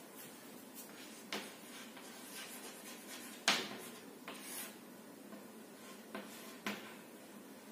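Chalk writing on a chalkboard: faint scratching strokes broken by a handful of sharp taps as the chalk strikes the board, the loudest about three and a half seconds in.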